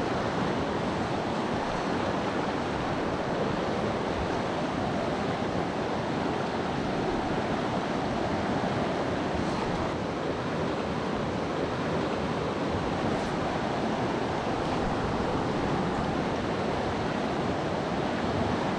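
Steady rush of flowing river water, an even noise that doesn't change.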